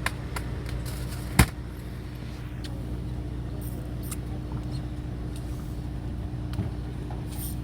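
A fishing boat's motor running with a steady low hum, with one sharp click about a second and a half in.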